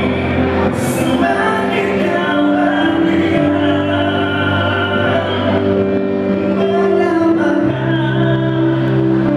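A man singing into a handheld microphone over backing music, both amplified through a sound system, with held notes over a steady bass line.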